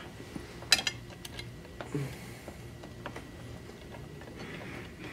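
A small metal pin being worked through the aligned metal levers of a massage chair's foot ottoman linkage, giving a few sharp metallic clicks and clinks. The loudest comes about three-quarters of a second in.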